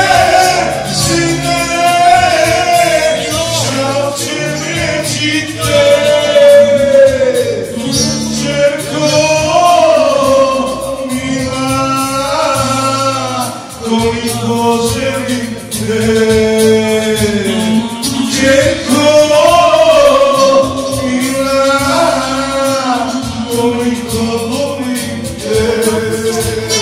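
A man singing a Bosnian folk song in long, wavering held notes over a steady instrumental accompaniment.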